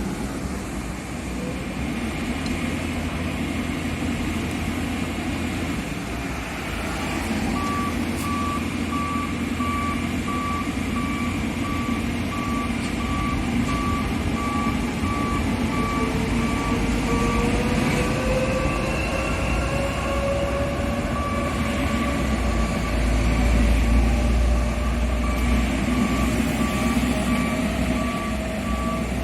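Diesel engine of an asphalt paver running as it moves off its transport trailer, with a reversing alarm beeping steadily from about a quarter of the way in. A whine rises slowly in pitch midway, and the engine's low rumble grows louder near the end.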